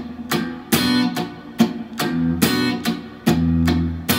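Clean electric guitar strumming a B minor chord in a steady rhythm: short, sharp muted chops alternate with ringing full-chord strokes. This is the exercise of switching quickly between muting and letting the chord sound, with a push of force on the accented strokes.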